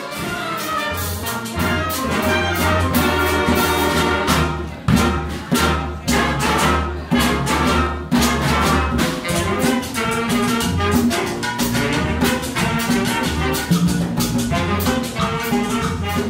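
Live Latin fanfare band playing salsa-style music: saxophones and brass over a drum kit and congas, with a driving steady beat and a bass line underneath.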